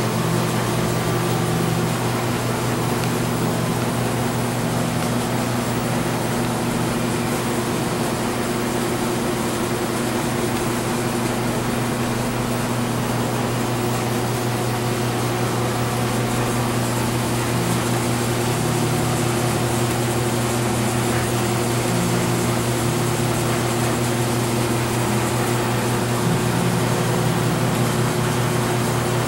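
Steady low mechanical hum, unchanging throughout, with a few held tones in it.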